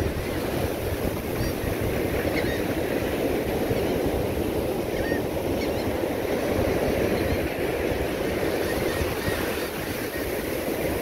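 Ocean surf breaking and washing up the sand, a steady rushing, with a few faint short high chirps over it.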